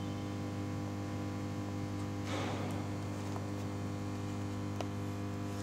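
Steady electrical mains hum with a stack of overtones, with a brief scratchy rustle about two seconds in.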